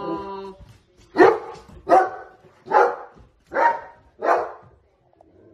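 A dog barking: five sharp single barks, evenly spaced about three quarters of a second apart.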